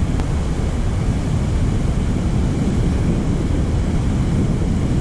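Wind buffeting the microphone in a steady low rumble, over the even rush of the creek water.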